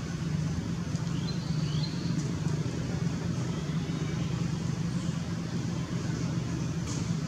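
Steady low motor hum, even in level throughout, with a few faint high chirps about a second in.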